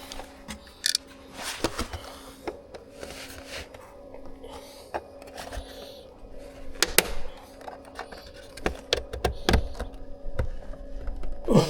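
Irregular clicks, knocks and thunks of plastic interior trim being pried and pulled loose from a car dashboard, over a steady low hum.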